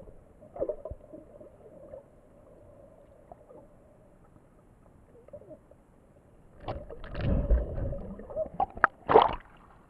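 Water moving around a submerged action camera in its waterproof case. It is faint at first, then from about seven seconds in comes louder sloshing and rumbling, with a few sharp knocks against the case near the end.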